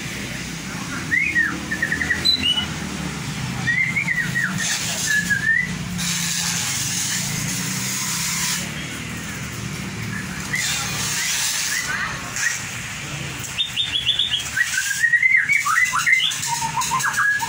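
White-rumped shama (murai batu) singing in bouts of quick, varied whistled and chirping phrases, busiest near the end, over a steady low hum.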